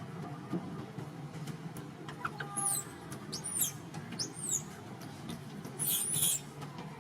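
Baby macaque monkey squealing: four short, high-pitched shrieks that bend up and down in pitch, the last and loudest about six seconds in.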